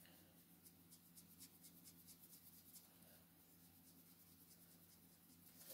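Faint, quick strokes of a Copic alcohol marker's brush nib flicked across coloring-book paper, several a second, laying tapered fur strokes.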